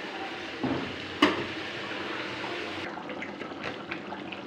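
Thick jackfruit curry simmering and bubbling in a steel kadhai, with a spatula knocking against the pan twice about a second in; later come small irregular pops of bubbles bursting.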